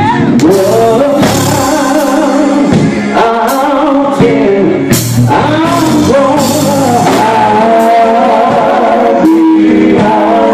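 A men's gospel group singing together into microphones, backed by electric guitar and bass, loud and amplified.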